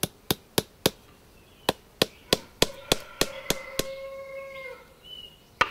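Farrier's hammer tapping horseshoe nails into a horse's hoof: sharp metal taps, four quick ones, then after a short pause a steady run of about three a second. A long, steady call sounds in the background midway through the taps.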